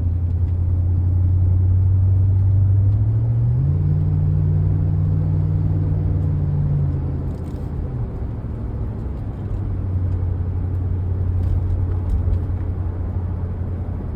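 Four-wheel-drive vehicle's engine and road noise while driving, heard from inside the cab: a steady low drone whose pitch rises about three and a half seconds in, holds, then drops back about halfway through.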